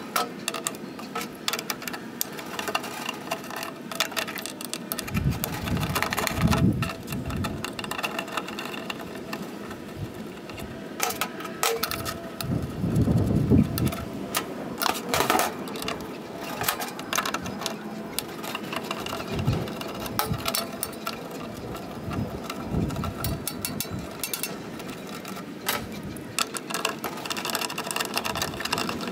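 Irregular metal clinks, scrapes and knocks from a screwdriver and hands working on an M Grills C4 stainless steel portable charcoal grill as it is taken apart, its lid swung open and old charcoal shifted inside the firebox. A few duller thumps come through, louder about five seconds in and again around thirteen seconds.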